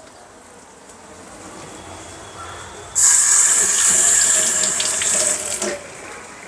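Kitchen tap running for about three seconds: water comes on suddenly about three seconds in and is shut off just before the end.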